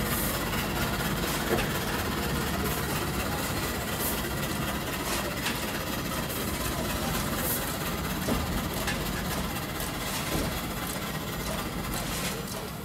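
Steam locomotive CN 7470, an 0-6-0 switcher, standing under steam with a steady hiss and rumble while it is swung round on a turntable, with a few light clanks.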